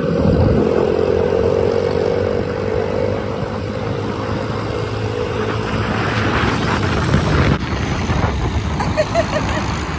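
Yamaha TTR110 pit bikes' small four-stroke single-cylinder engines running at road speed: a steady engine drone whose pitch eases down slightly over the first few seconds, under a dense rushing noise. The sound changes abruptly about seven and a half seconds in.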